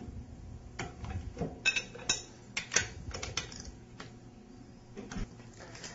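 Irregular metallic clicks and clinks from a socket torque wrench being worked on the tie-rod nuts of a waterjet intensifier, the nuts being tightened to 40 foot-pounds.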